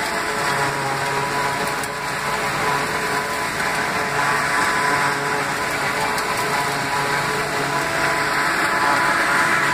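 John Deere 2755 tractor running a John Deere forage harvester chopping dry corn stalks: a steady mechanical whirr of engine and cutter, with chopped forage blowing out of the spout into the wagon.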